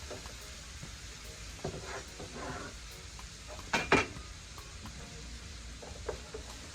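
Greens and peppers sizzling in a frying pan while a utensil stirs them, with light knocks against the pan and two sharp clanks just under four seconds in.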